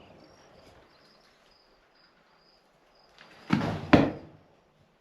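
A brief scraping rush followed by a sharp knock, about three and a half seconds in, over faint high chirping.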